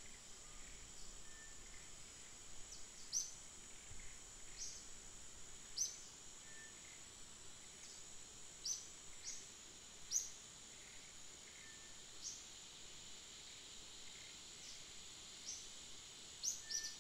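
Faint forest ambience: a steady high-pitched insect drone, with short high chirps every second or two and a quick pair near the end.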